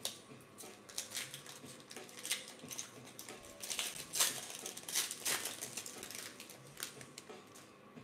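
Foil trading card pack wrapper being torn open and crinkled by hand: a run of sharp crackles, loudest about four to five seconds in, dying away near the end as the cards come out.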